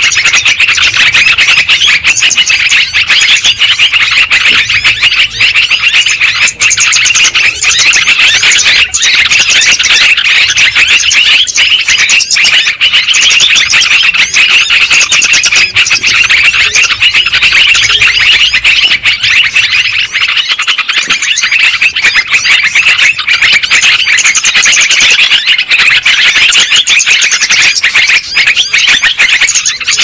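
Yellow-vented bulbuls calling and chattering continuously in a dense chorus of overlapping bubbly calls: a bird-lure track for catching this species. A faint low hum underneath stops about two-thirds of the way through.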